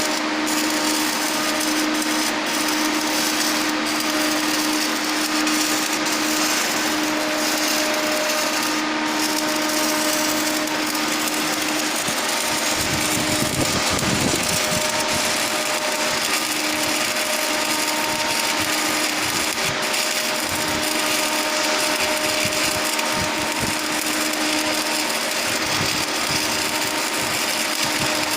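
Arc welding on a pipe: a steady, unbroken hiss from the welding arc over a steady machine hum, with a brief low rumble about halfway through.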